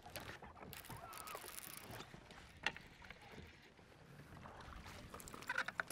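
Irregular knocks, rustling and scraping from handling gear and a fish on a bass boat's deck, with a faint short rising squeak about a second in and a few brief pitched chirps near the end.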